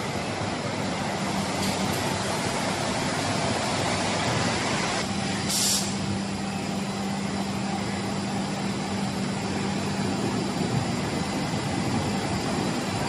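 Glass-processing machinery running with a steady mechanical noise and a low hum that comes in about five seconds in and drops out a little after ten. A short hiss, like compressed air being let out, sounds about five and a half seconds in.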